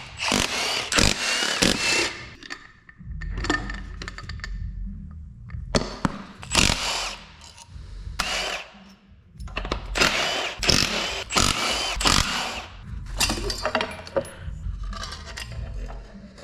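Tool work on a diesel engine being torn down: repeated short bursts of power-tool noise and metal clatter, with a low steady hum underneath from about three seconds in.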